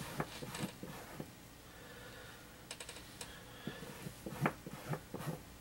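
Computer keyboard keys pressed in scattered taps. There is a quick run of light clicks a little before the middle and a few louder taps in the second half.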